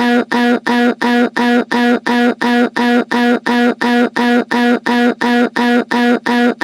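A synthesized voice stuck repeating one short syllable over and over at the same pitch, about three times a second.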